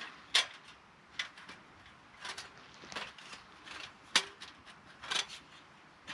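Small folding metal camp stove being unfolded and its panels clicked into place by hand: a string of about six sharp metallic clicks and clanks, the loudest near the start and about four seconds in.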